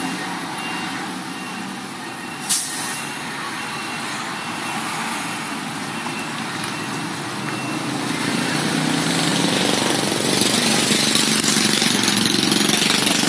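Street traffic noise: vehicle engines running and passing, growing louder in the second half. There is one sharp clack about two and a half seconds in, and a faint repeating beep during the first half.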